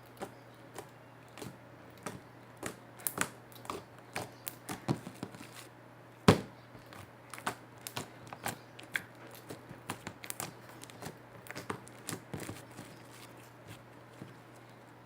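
Slime being worked by hand, giving irregular small clicks and pops, with one louder pop about six seconds in.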